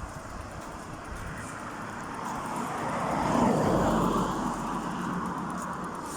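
A road vehicle passing by: the noise swells to a peak a little past the middle and then fades away.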